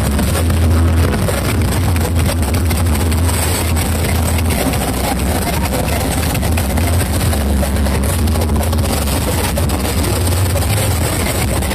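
Massed truck-mounted carnival sound systems (sound horeg) playing at once: a loud, steady, heavily distorted bass rumble with a rough noisy haze above it.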